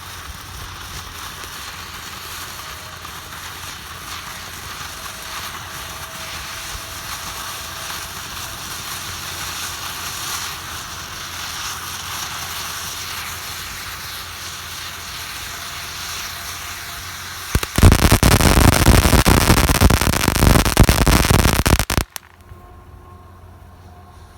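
Consumer fireworks crackling steadily, then a much louder, dense burst of crackling about eighteen seconds in that lasts about four seconds and cuts off suddenly.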